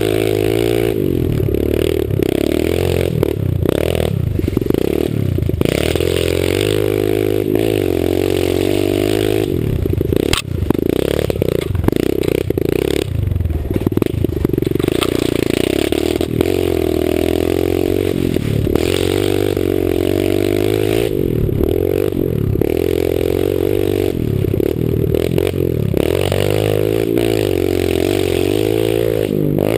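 Pit bike engine revving up and down again and again as it is ridden over a dirt track, with wind noise on the helmet-mounted camera's microphone.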